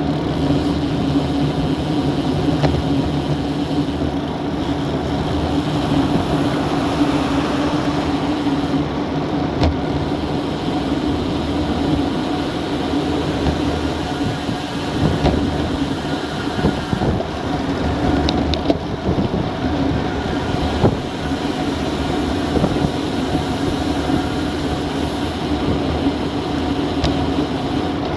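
Steady wind rush and tyre noise on a bike-mounted action camera's microphone, riding at around 30 to 40 km/h, with a few faint ticks and rattles from the bike.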